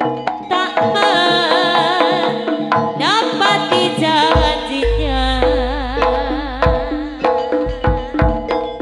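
Live jaranan ensemble playing: hand drums beat a quick, busy rhythm under a melody with a strongly wavering pitch. A deep low note comes in about halfway and holds under the drums.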